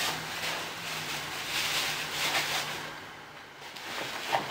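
Plastic bag crinkling and rustling as an item is packed into a backpack, in a few uneven rushes that ease off about three seconds in.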